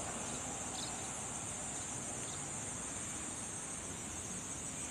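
Insects calling in a steady, unbroken high-pitched drone.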